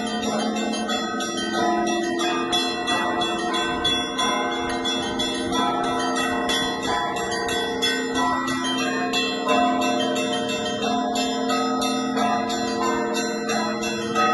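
Russian Orthodox church bells rung in a continuous peal: small bells struck in a quick, dense rhythm over the steady ringing of larger bells.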